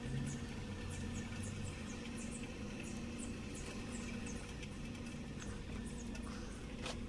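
Faint bird chirping: short, high chirps a few times a second over a low background hum.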